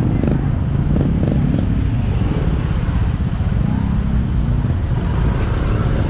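Motorbike engines running at low speed in crawling traffic, a steady low engine noise, with crowd voices in the background.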